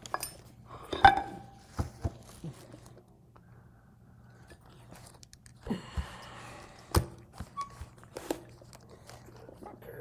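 Metal clinks and knocks from handling a Hardinge cross slide and its parts on a table. The loudest is a ringing metallic clink about a second in; a short scraping rasp comes near the six-second mark, followed by a sharp knock.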